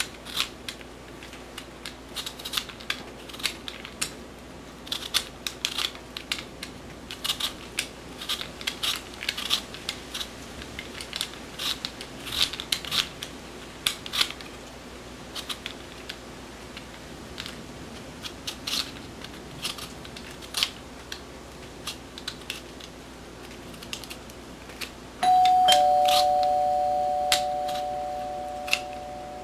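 Short scraping strokes of a knife paring the skin off a potato, with light clicks on the cutting board. About 25 seconds in, a two-note ding-dong doorbell chime rings, the lower note following the higher, and both fade slowly; it is the loudest sound.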